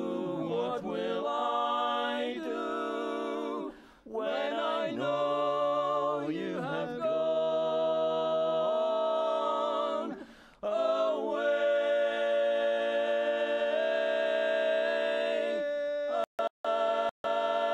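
Male barbershop quartet singing a cappella in close four-part harmony, moving through chords with two short breaths, then holding one chord for about five seconds. Near the end the sound cuts out briefly a few times.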